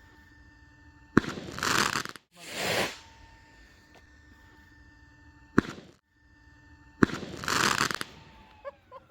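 Small solid rocket motor or firework igniting: a sharp crack followed by about a second of rushing hiss, heard several times in a row with abrupt cuts between them. Short clucking calls come in near the end.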